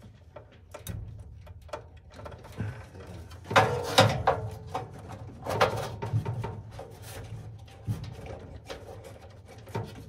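Hands moving furnace wiring and a clamp meter in a sheet-metal blower compartment: scattered clicks, knocks and rustles, with a louder scraping clatter about three and a half seconds in. A steady low hum runs underneath.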